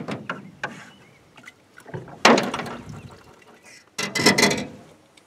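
A wet landing net is swished and shaken out in an aluminium jon boat, making two loud splashing rushes, about two and four seconds in, with water dripping and rattling off the mesh. A few light knocks sound in the first second.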